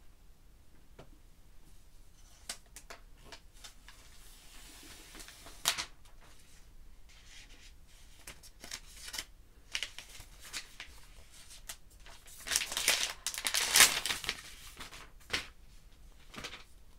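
Protective plastic wrap being peeled and pulled off a new iPad Pro: scattered crinkles and small taps, with a longer, louder stretch of tearing and rustling about three-quarters of the way through.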